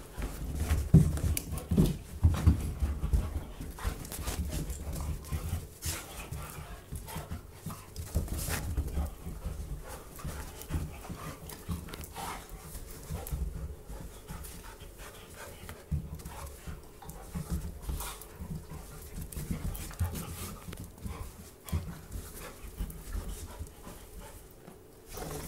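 Two dogs play-wrestling on carpet: panting, with the scuffle of paws and irregular thumps and bumps of their bodies, busiest in the first few seconds and easing off after.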